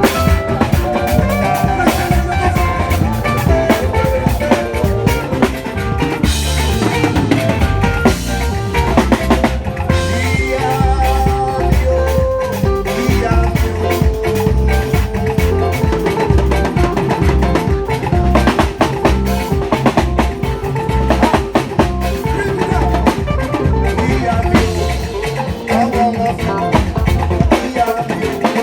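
A band playing a steady groove at a sound check, the drum kit leading with dense hits over a pulsing low bass line and sustained pitched instrument notes.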